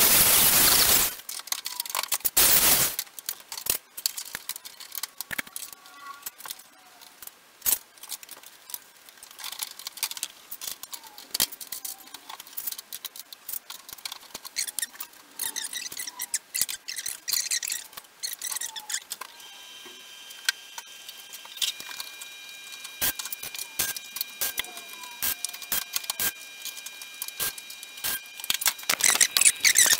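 Two short bursts of MIG welding tacking a steel car wing panel, then many light clicks, taps and small squeaks as clamps and the sheet-metal panel are handled. Faint steady high tones join about two-thirds of the way in, and a dense crackle of welding starts near the end.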